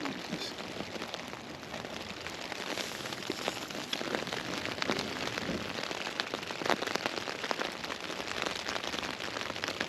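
Steady rain falling on a Hilleberg Unna tent, heard from inside: an even hiss of rain with many separate drop hits on the fabric.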